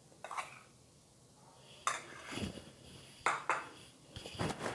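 A metal spoon clinking lightly against a cup and a glass mixing bowl as rice flour is spooned in, a few separate light clinks spread over several seconds.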